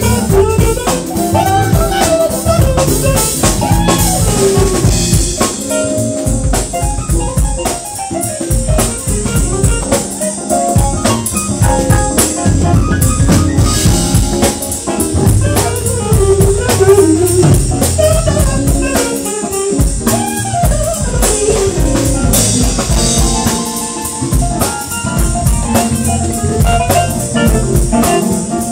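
Live jazz band playing an instrumental passage: drum kit with rimshots, electric bass and a synthesizer keyboard.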